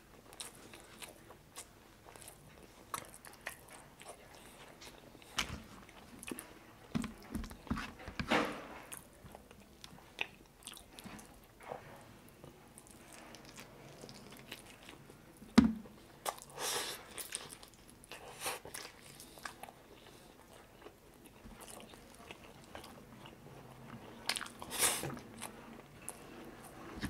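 Close-miked eating: a man chewing and biting into chicken adobo and rice eaten by hand, with irregular short mouth and food noises. The loudest is a sharp click a little past halfway.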